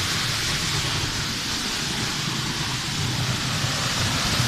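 Waterfall: a steady, unbroken rush of falling water with a low rumble underneath.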